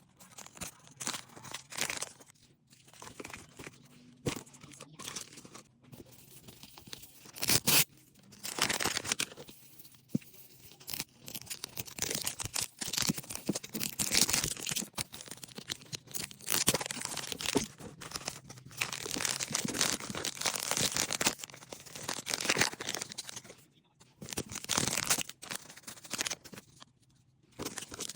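Plastic packaging being torn open and crinkled by hand, in irregular bursts with short pauses between them.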